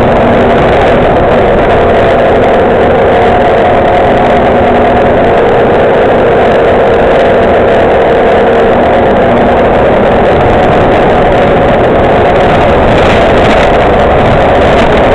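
Interior noise of an MCW Metrobus Mk2 double-decker on the move: its diesel engine and drivetrain run loudly and steadily, with a whine whose pitch shifts slightly as the bus drives.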